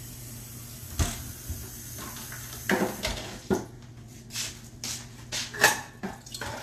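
Kitchen items being handled on a counter: one sharp knock about a second in, then an irregular run of clicks, taps and short rustling strokes, over a low steady hum.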